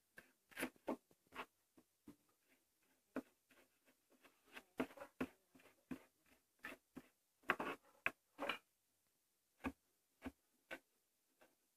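Kitchen knife chopping fresh cilantro finely on a cutting board: a run of light, uneven knocks of the blade on the board, bunched in short flurries with brief pauses between.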